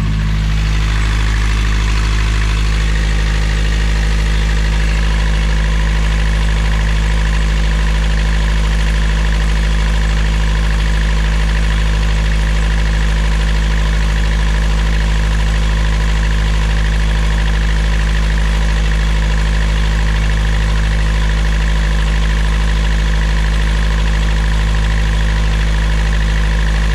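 Sailboat's inboard engine idling steadily, with a faint, steady high squeak from the alternator, which is charging the batteries in bulk.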